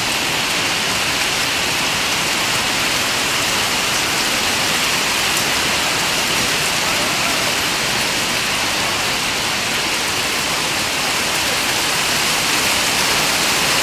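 Hailstorm: hailstones and rain falling hard on a concrete yard, a steady, even hiss with no single strikes standing out.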